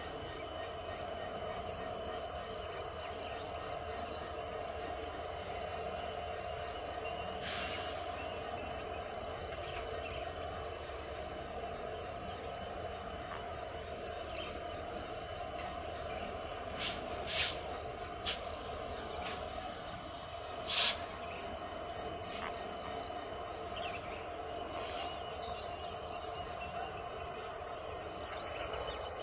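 Insects chirping in a steady, evenly pulsing high chorus over a low steady hum, broken by a few brief sharp sounds near the middle, the loudest about two-thirds of the way through.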